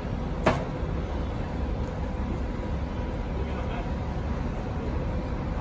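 Heavy diesel engine running steadily at a low rumble, with a faint steady hum over it. A single sharp knock comes about half a second in.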